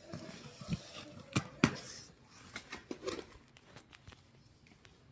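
Scattered clicks and knocks of small objects being handled, with light rustling in between; two sharp taps stand out about a second and a half in.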